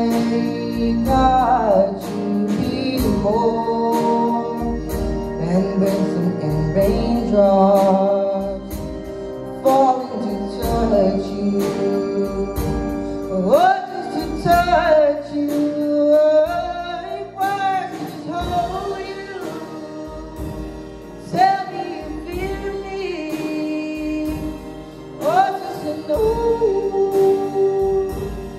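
Live band performing a song: a male lead singer with backup voices over piano, violin and a drum kit keeping a steady beat.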